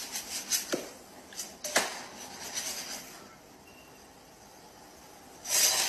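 Several sharp clicks and knocks from a frying pan handled over a glass stovetop in the first two seconds, then a low hiss and one short, louder noisy burst near the end.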